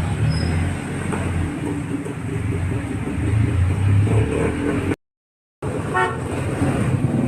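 Street traffic: vehicle engines running with a low rumble, and a short horn toot about six seconds in. The sound drops out completely for about half a second just before the toot.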